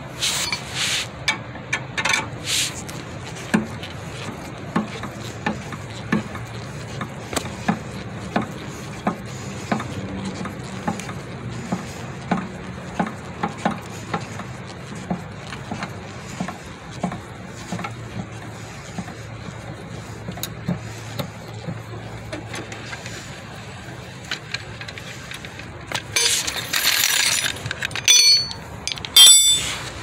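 Car scissor jack being cranked down with its hooked handle rod: repeated metallic clicks and clinks as the handle turns. Near the end comes a louder burst of noise and sharp clinks.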